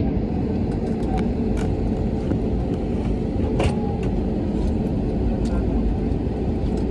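Steady low rumble of an airliner's cabin with the engines running on the ground before takeoff, with a few faint clicks and rattles, the clearest about three and a half seconds in.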